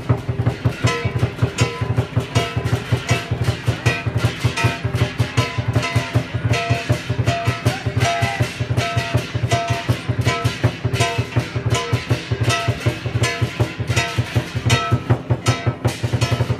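Music with a fast, steady beat, a heavy bass line and a plucked-string melody.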